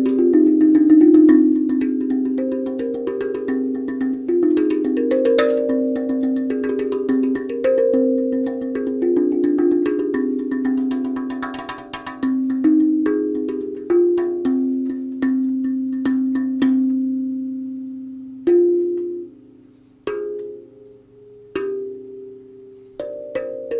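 Steel tongue drum tuned to C minor, its tongues struck with the fingers: a stream of overlapping ringing notes. About two-thirds of the way through, the notes thin out into a long note left to die away and a few single strikes. The playing picks up again near the end.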